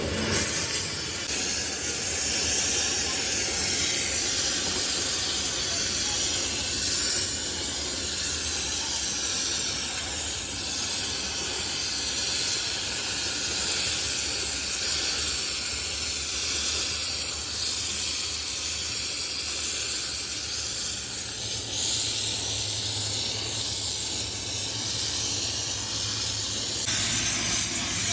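Steady, fairly loud hissing, with a low hum joining in about 22 seconds in.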